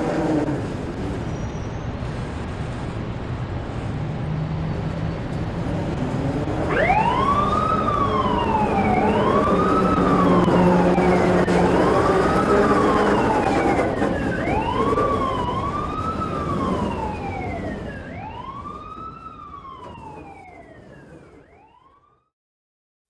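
A siren wailing, its pitch rising quickly and falling slowly about every second and a half, over a dense steady rumble like traffic noise. It starts about a third of the way in, and the whole sound fades away to silence near the end.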